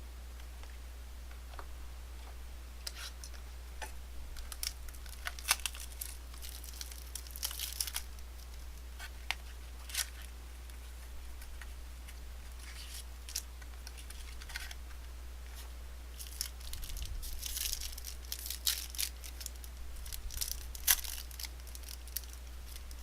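Trading card packaging being torn and crinkled open and cards handled: scattered crackles, rustles and small clicks, with a busy stretch about a quarter of the way in and another in the later part.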